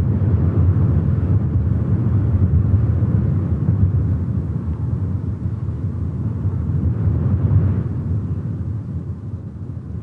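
Deep, steady rumbling noise with no tune or voice in it, easing off slowly over the last two seconds: a sound effect marking a scene break in an audio drama.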